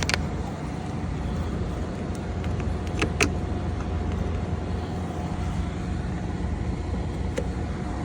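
Ford van engine idling steadily, with a few sharp clicks about three seconds in and again near the end.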